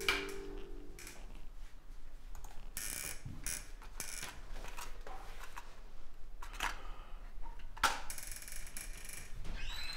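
Scattered clicks and knocks of small objects being handled at a kitchen counter, with a short squeak near the end.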